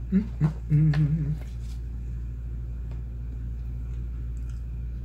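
A man humming with his mouth closed: a few short "mm" sounds in the first second and a half, the last one longer and wavering in pitch. A steady low hum runs underneath.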